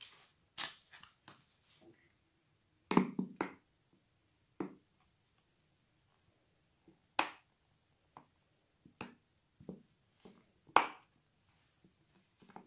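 Handling noise from a thin plastic glue bottle being squeezed over a plastic plate: scattered sharp clicks and crinkles, with a cluster of crackles about three seconds in.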